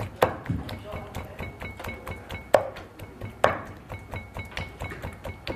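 The back of a kitchen knife is pounding raw chicken breast against a cutting board, beating the meat into a paste. It makes rapid light taps with a few louder knocks mixed in.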